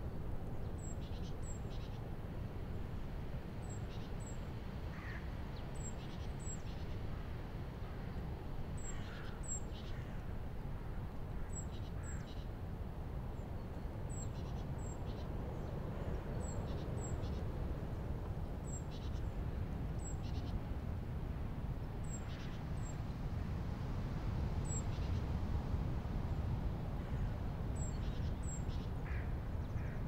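Strong, gusty wind blowing through the bare branches of a 70-year-old birch tree in winter: a steady, deep noise that swells a little past the middle. Birds call in the background, short high calls every second or two.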